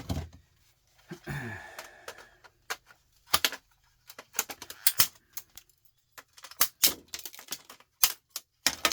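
Sharp, irregular plastic clicks and knocks, with a short scrape about a second in, as an appliance display control board is pried out of its plastic housing.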